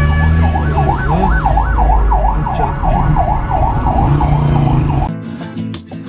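Siren sweeping rapidly up and down in pitch, a couple of cycles a second, over a low rumble; it cuts off abruptly about five seconds in and music with plucked strings starts.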